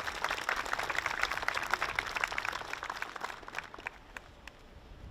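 Audience applauding, the clapping thinning to a few scattered claps after about three seconds and dying out.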